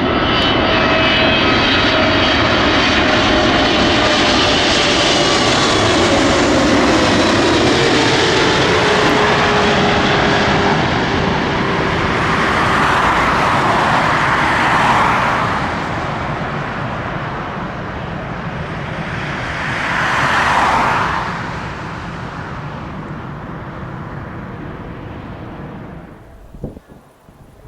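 Boeing 777-300ER's GE90 jet engines on landing, passing close with a loud jet rumble and a whine whose pitch falls over the first ten seconds. The noise swells twice more midway, then dies away near the end.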